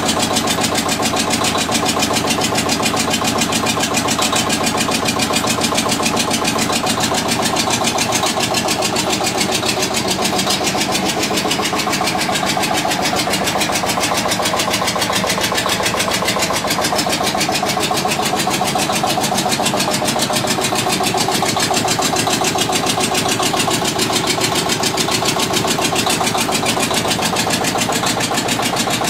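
Witte diesel generator engine running steadily with an even, rapid mechanical clatter.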